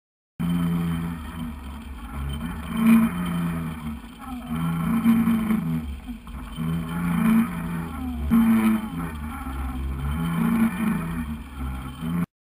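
Muffled drone of a fishing boat's motor heard underwater through the camera, its pitch wavering, with a few sharp knocks.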